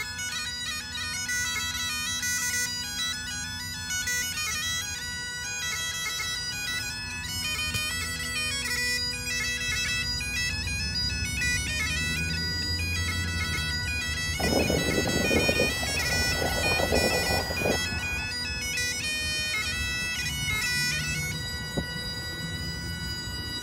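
Bagpipes playing a tune over their steady drones. Around the middle a rushing noise comes in over the pipes for about three seconds, and near the end the tune settles into held notes over the drones.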